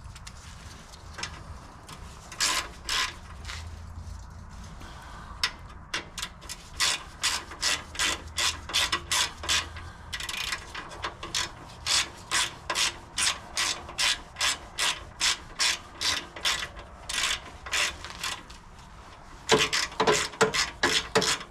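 A ratcheting hand tool clicking in repeated strokes as a fastener on a snowblower is turned out, about two to three clicks a second. Near the end the clicking turns faster and louder.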